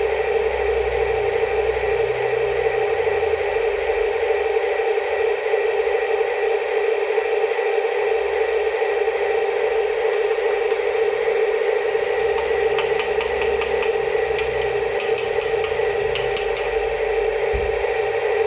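Small electric motor and gearing of a mini RC construction vehicle whining at one steady pitch. Several quick runs of sharp ticking come in from about two-thirds of the way through.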